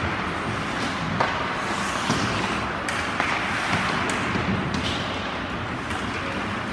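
Ice hockey play on a rink: a steady hiss of skates on the ice, with a few sharp clacks of sticks and puck.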